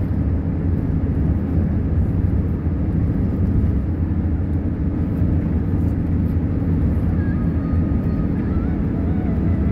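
Steady drone of engine and tyre noise heard inside a car's cabin while driving at highway speed.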